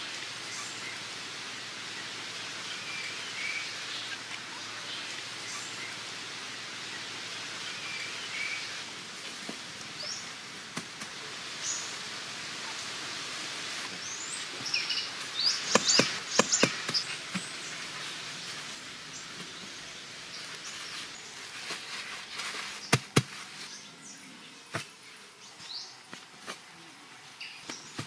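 Tropical forest ambience: a steady hiss of insects with scattered bird chirps. A few sharp clicks and knocks come in a cluster about halfway through and twice more a little later.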